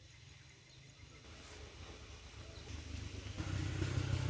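A motor vehicle engine running and drawing closer, a low rumble that grows steadily louder from about three seconds in.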